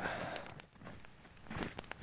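Open wood campfire crackling, its sharp pops coming thicker in the last half second. A brief rustling noise at the start.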